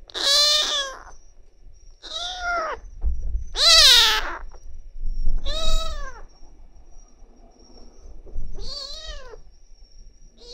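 Kitten meowing five times, a second or two apart, each call rising and then falling in pitch.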